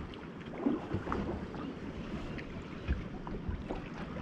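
Wind on the microphone over choppy sea water slapping against a boat, with a few light knocks.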